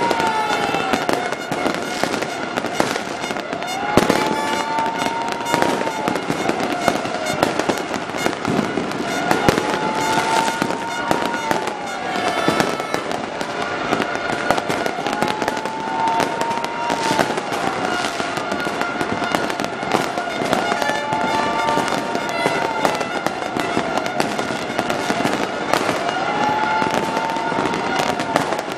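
Fireworks going off without pause, dense bangs and crackles from many shells at once. Over them a wailing tone rises, holds and falls, repeating about every five or six seconds.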